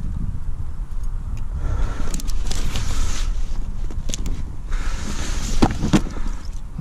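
Handling noise as a pike is lifted out of a landing net onto a padded unhooking cradle: net mesh and cradle fabric rustling in two spells, and two sharp knocks near the end. A steady low rumble runs under it all.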